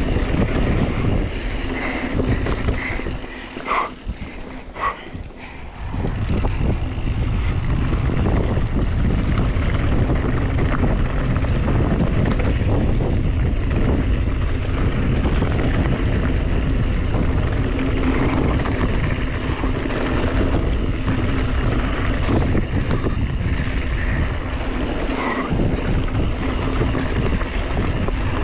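Wind buffeting the camera microphone together with the rattle and rumble of a mountain bike rolling fast over a dirt trail. The rush drops off briefly about four seconds in, then picks up again.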